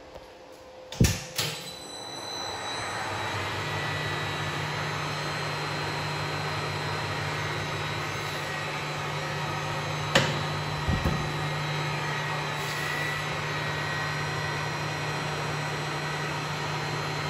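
Moriseiki manual lathe started with a clunk about a second in and spinning up, then running steadily with a low hum and faint high gear whine as its gearbox drives the lead screw to feed the carriage. One sharp click near the middle.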